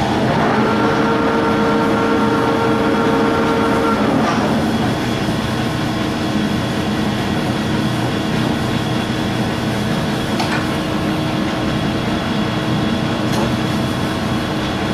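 A 1953 Warner & Swasey 4A lever-head turret lathe running under power, with a steady rumble of its 40 hp gear drive and a gear whine in several tones. The whine drops out about four seconds in, leaving a steady rumble with a few faint clicks.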